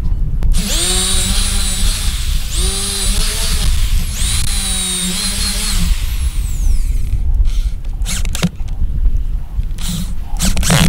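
Handheld electric drill running in three bursts of about a second and a half each, its whine rising at the start of each burst as the motor spins up, boring into wooden battens. Near the end it runs in several short, sharp bursts, driving screws into the battens.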